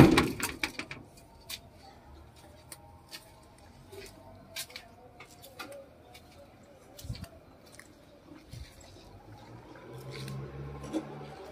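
A loud bang of the old truck's steel cab door being shut at the start. Then crunching footsteps on dry weeds and gravel, with a low hum coming in near the end.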